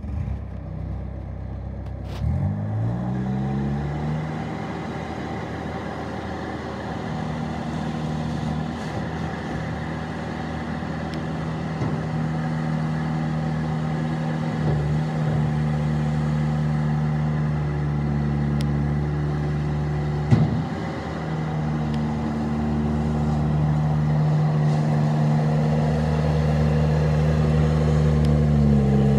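Bobcat T250 tracked skid steer's diesel engine starting, rising in pitch about two seconds in, then running steadily. One brief knock sounds about two-thirds of the way through.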